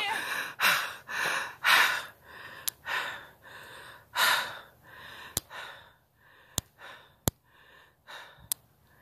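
Heavy, gasping breaths of a person out of breath from hiking up a hill, strongest in the first few seconds and fading toward the end. A few sharp clicks occur among them.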